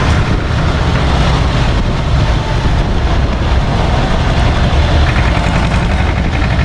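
SAME tractor's diesel engine running steadily as the tractor drives along, a dense, loud low rumble.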